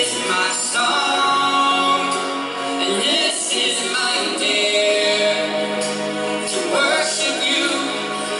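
Contemporary Christian worship song: voices singing long held notes over instrumental accompaniment.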